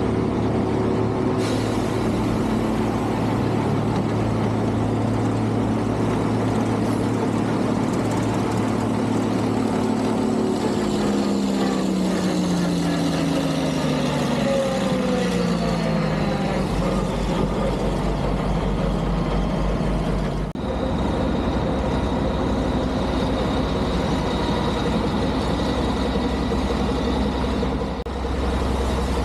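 Heavy engines of snow-removal vehicles running. Partway through, one engine's pitch falls over several seconds, and about twenty seconds in the sound changes abruptly to a steadier low drone.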